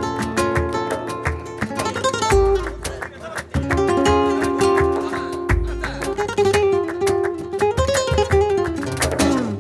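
Background music: Latin acoustic guitar in a flamenco style, plucked and strummed over deep bass notes.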